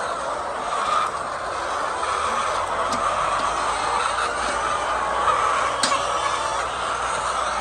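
Steady din of a flock of hens clucking together in a poultry house, with a low hum underneath and two short sharp clicks, one about three seconds in and one near six seconds.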